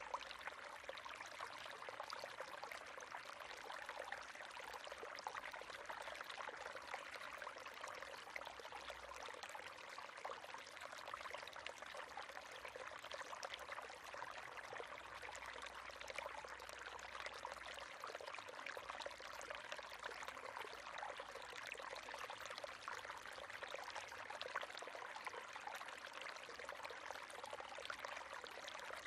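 River water flowing steadily, a continuous rush of fine splashing.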